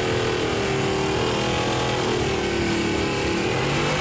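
1973 Chevrolet pickup's 383 small-block V8 held at high revs during a burnout, with its rear tires spinning on the wet strip. The engine note sags slightly in pitch partway through and climbs again near the end.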